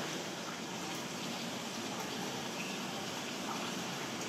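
Steady rushing background noise, even throughout, with a few faint ticks.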